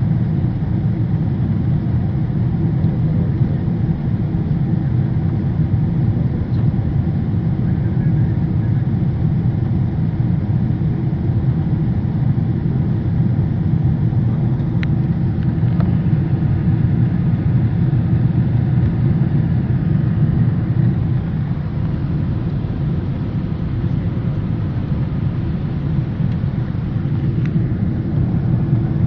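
Airplane take-off noise: a steady low rumble from the engines and airflow, unchanging throughout, with a couple of faint ticks.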